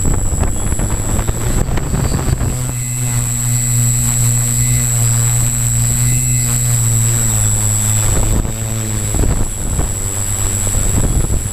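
Zion EX700 multicopter's electric motors and propellers humming steadily in flight, with a constant high whine over a low hum. The hum is steadiest in the middle and rougher and noisier at the start and again near the end.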